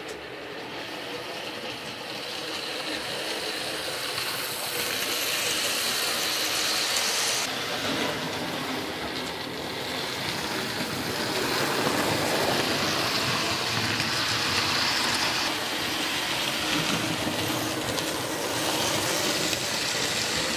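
Hornby OO-gauge Class 37 model diesel locomotive and its coaches running around the track, a steady mechanical running and rattling of the small motor and wheels on the rails, getting louder over the first few seconds and then swelling and easing as the train moves around the layout.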